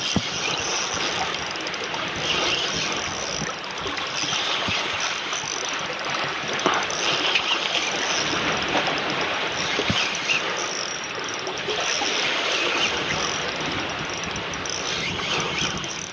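Steady rushing of wind and sea water at a shoreline, swelling and easing every few seconds, with a few faint knocks.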